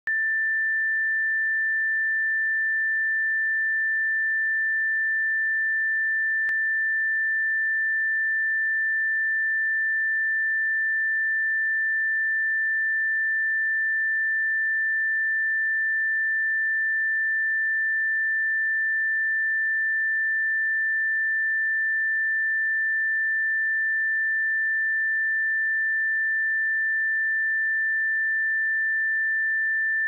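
A pure 1774 Hz sine-wave test tone: one steady, unchanging high tone with no harmonics, used to check speakers or headphones.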